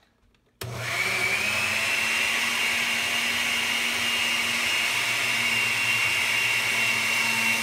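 Oster countertop blender switched on at its milkshake setting, blending milk, yogurt and banana. The motor starts suddenly about half a second in, its whine rising over the first second, then runs steadily and loudly.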